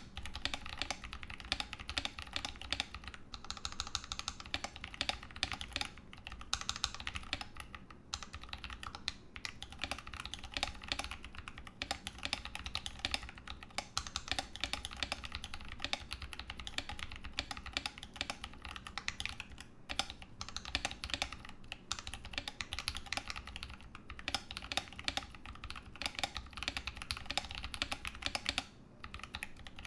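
Continuous fast typing on a custom 60% mechanical keyboard (Ramaworks M60-A) with tactile Holy Panda switches and GMK Pristine keycaps: a rapid stream of key clacks with a few brief pauses, the longest near the end.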